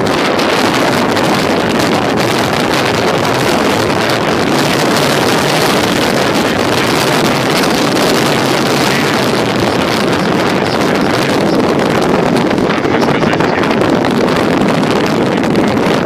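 Storm surf on the Sea of Azov: rough waves breaking and foaming on a sandy shore, a loud, steady rush, with strong wind blowing on the microphone.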